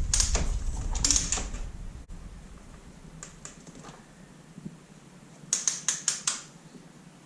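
Sharp clicks and light clatter of hand tools and engine parts being handled, with a quick run of several clicks a little past the middle.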